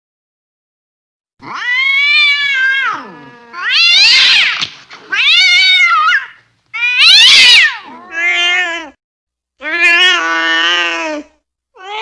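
Angry cat yowling: a series of about six drawn-out caterwauls, each rising and falling in pitch, beginning about a second and a half in.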